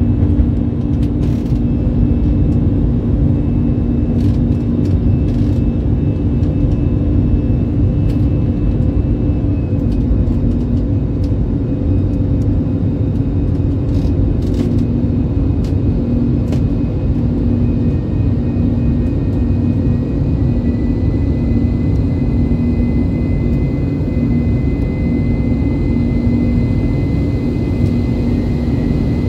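Airbus A319-115's CFM56 jet engines and airflow heard from inside the cabin during the climb after takeoff: a loud, steady roar with a low hum and a faint high whine. A few light clicks come in the first half.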